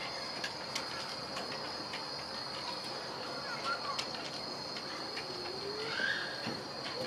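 Steady high-pitched chirring of insects, an even drone, with scattered faint clicks and a couple of brief chirps.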